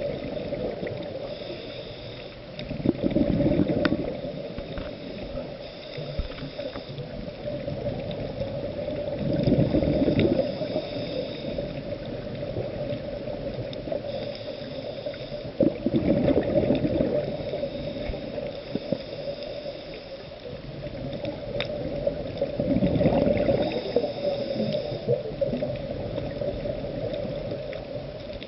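Underwater sound of a scuba diver's exhaled bubbles gurgling from the regulator in bursts about every six to seven seconds, with scattered faint clicks between them.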